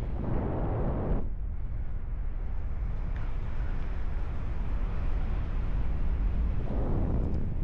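Wind rushing over the microphone of a paraglider pilot in flight: a steady low rumble that swells twice into stronger gusts, once at the start and again near the end.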